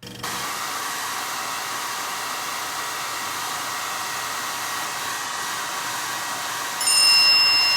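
Hair dryer blowing steadily, then a bright ringing ding about seven seconds in, the loudest sound here, that rings on.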